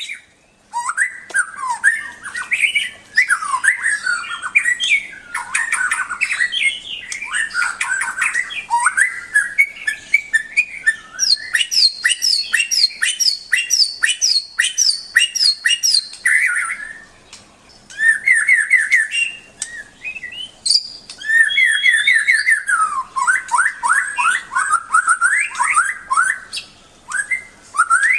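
A white-rumped shama (murai batu) singing a long, varied song of whistled phrases, rapid repeated notes and fast trills, with a few short pauses.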